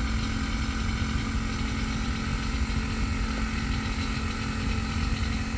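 Vehicle engine idling steadily, a low rumble with a constant hum.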